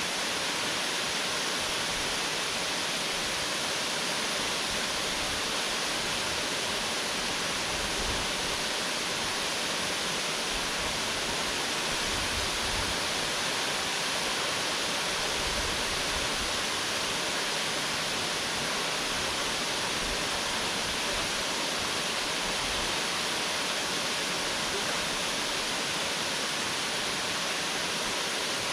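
Waterfall pouring: a steady, unbroken rushing hiss of falling water.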